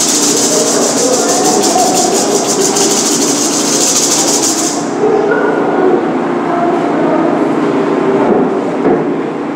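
A gourd rattle shaken rapidly and without a break for about five seconds, then stopping.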